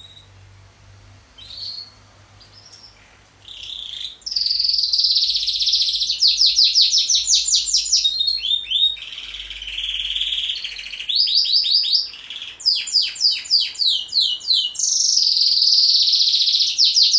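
A pet songbird singing: a few soft chirps, then from about four seconds in, loud continuous song of rapid trills and fast runs of repeated notes.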